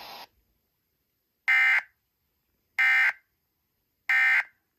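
Emergency Alert System end-of-message signal: three short bursts of SAME digital data tones, evenly spaced about a second and a quarter apart, marking the end of the severe thunderstorm warning. A steady broadcast hiss cuts off just before the first burst.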